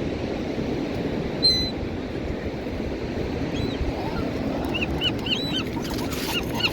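Birds calling over a steady rush of wind and water: one call about a second and a half in, then a run of short, quick cries from about five seconds on.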